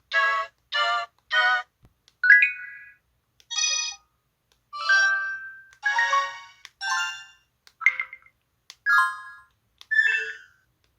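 LG-SH130 mobile phone's built-in sound effects playing one after another. Three short, evenly spaced electronic chord blips come first, then a run of different brief chimes and beeps, some rising in pitch, about one a second with short gaps between them.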